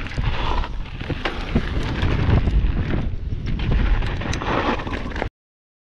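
Mountain bike descending a loose, rocky gravel trail: wind buffeting the bike-mounted camera's microphone over the rumble of tyres on stones, with scattered sharp clicks and rattles. The sound cuts off suddenly a little over five seconds in.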